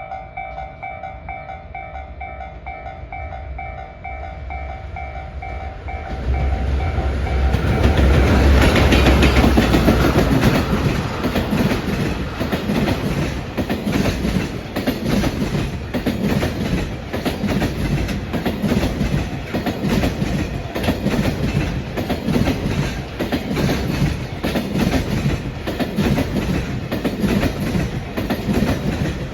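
A level-crossing warning bell rings in a steady repeating pattern as the train approaches. Then a JR Freight EF210-100 series electric locomotive passes loudly, about eight seconds in, hauling a long train of container flatcars. The wagons' wheels clatter over the rail joints in a steady rhythm.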